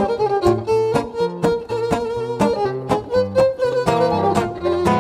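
Background music: an upbeat tune with a violin melody over plucked strings and a steady beat.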